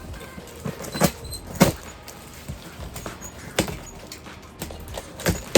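Fidget toys and their packaging being handled: a few separate clicks and knocks, the loudest about a second and a half in.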